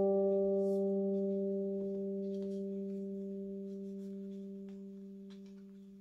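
Background piano music: a single held low note with its overtones, fading away slowly. Faint crinkles of origami paper being folded.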